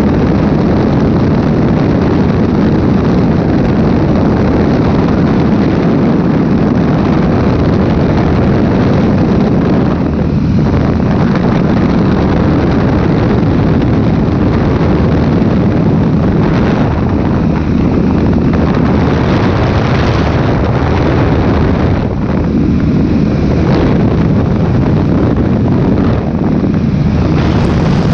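Baby Ace light airplane in flight: its engine drones steadily under heavy wind rushing over the open cockpit and the microphone.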